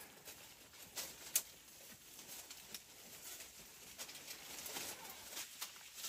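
Goats feeding among brush: rustling with scattered sharp clicks and snaps, the loudest snap about a second and a half in.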